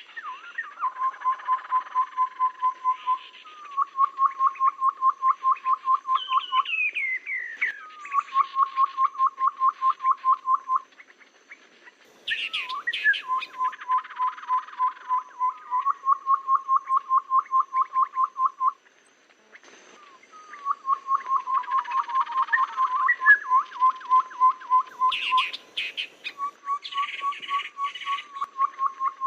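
Tepus babbler lure call: repeated runs of rapid, evenly spaced low whistled notes, each run lasting two to three seconds, with higher chirps and calls overlapping at times.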